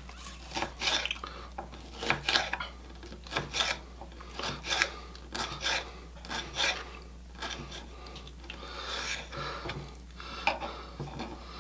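Kitchen knife slicing a bell pepper into strips on a wooden cutting board: a run of irregular crisp cuts, each ending in a light tap of the blade on the board.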